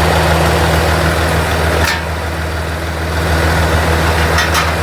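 Semi truck's diesel engine idling steadily, with two short clicks about two seconds and four and a half seconds in.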